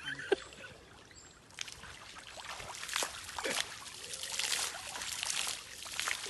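Stream water trickling and splashing in an uneven, irregular rush, with one sharp tap about a third of a second in.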